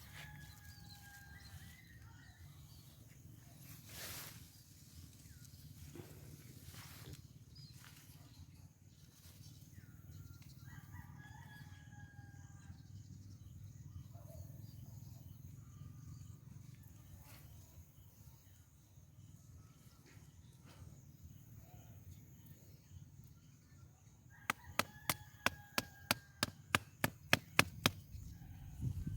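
A rooster crowing faintly three times, near the start, midway and near the end, over a steady low hum. Near the end a quick run of about a dozen sharp clicks, about three a second, is the loudest sound.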